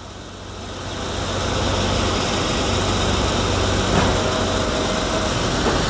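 Ford 351 V8 of a 1971 Mercury Cougar idling steadily, getting louder over the first two seconds, with a short click about four seconds in.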